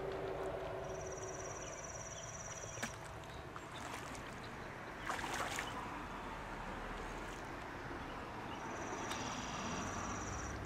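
A hooked carp splashing and swirling at the surface of the water, with one larger splash about five seconds in. Twice, for about two seconds each time, there is a fast, high-pitched ticking from the fishing reel as the fish is played.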